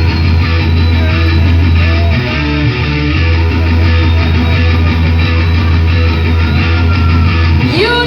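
Rock band playing live: electric guitars and bass guitar over a heavy, steady low end, loud and continuous. A singer's voice comes in just at the end.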